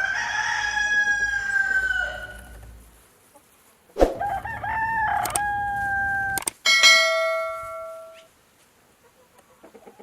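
Rooster crowing twice, each crow a long call that falls slightly in pitch, with a sharp click before the second. Near the end, a clear ringing tone begins abruptly and fades away over about a second and a half.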